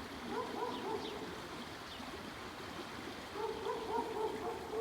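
A high, wavering whine from an animal, heard twice, the second time longer, over the steady rush of running water.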